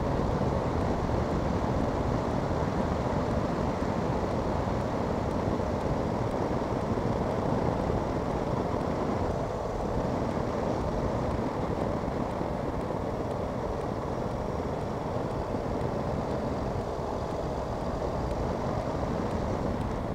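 Motorcycle being ridden, its engine running under a steady rush of road and wind noise.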